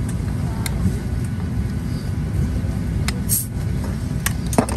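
Steady low rumble of a vehicle in motion, with a few sharp clicks and a brief hiss a little over three seconds in.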